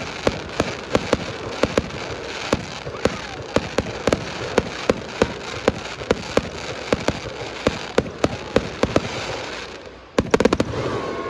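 Aerial fireworks bursting in quick succession, about three sharp bangs a second over a continuous crackle, with a rapid flurry of bangs near the end before the noise dies down.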